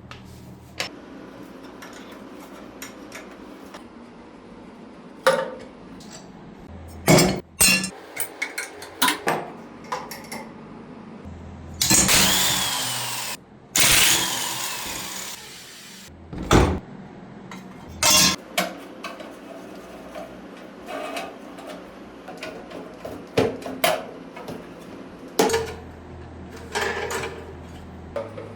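Metal tools and parts clanking and knocking against each other in bursts, with a few louder bursts that ring.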